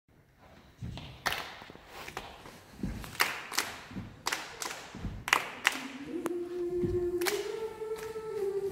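Children's choir doing body percussion: foot stomps and hand claps in a rhythmic pattern. About six seconds in, the voices come in on a held note that steps up in pitch.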